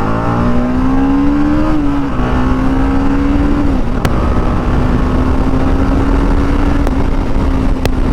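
TVS Apache RR 310's 312 cc single-cylinder engine pulling under way on its stock exhaust: the revs climb through the first couple of seconds, dip briefly twice, then hold nearly steady at cruise.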